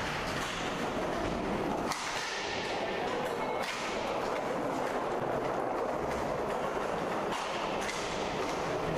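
Inline hockey play: a steady rush of rink noise broken by several sharp clacks of sticks and puck.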